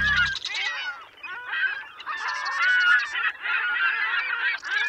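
A flock of birds calling over one another: many short, overlapping cries, with a brief lull about a second in. The closing music cuts off just as they begin.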